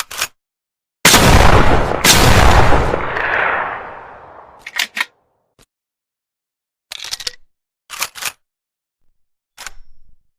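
TOZ over-and-under shotgun fired twice, one barrel then the other about a second apart, the second shot's report dying away over a couple of seconds. Then come several short groups of sharp clicks.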